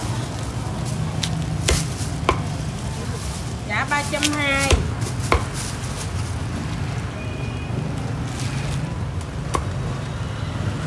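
Cleaver chopping and slicing roast pork on a thick round wooden chopping block: a few sharp knocks of the blade striking the wood, spread out, with quieter cutting between them, over a steady low hum.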